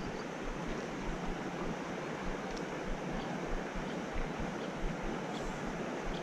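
Steady rushing of river water running over rapids.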